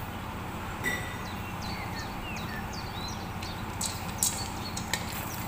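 A wooden spatula stirs macaroni in a stainless steel pot, giving a few sharp knocks and scrapes from about four seconds in. Behind it runs a steady low hum, and small birds chirp briefly in the first half.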